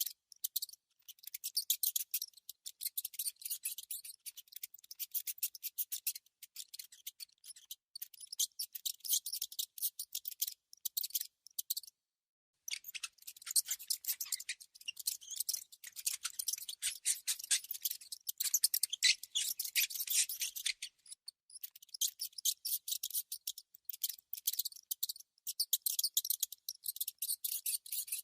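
A mouse's rapid, dry scratching and clicking, high-pitched, in dense irregular runs with a short pause about twelve seconds in.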